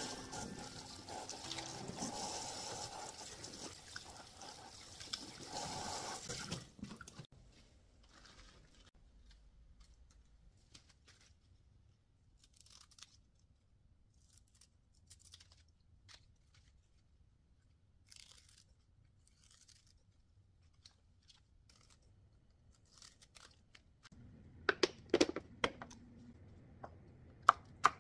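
Tap water running into a stainless steel sink as lettuce is rinsed, stopping about seven seconds in. Then come faint rustles and snips as lettuce leaves are trimmed with kitchen scissors. Near the end, a knife chops a green chilli on a wooden cutting board in a run of sharp taps.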